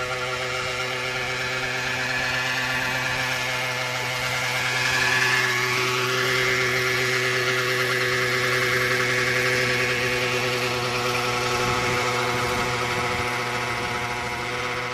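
Small two-stroke gas engine of a Century 800-size RC helicopter running at a steady speed, with a wavering higher whine over it.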